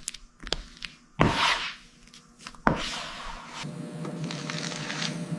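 Hand bodywork on car body filler: a few sharp clicks, a rubbing stroke about a second in, then a steady hiss with a faint hum underneath from about three seconds in.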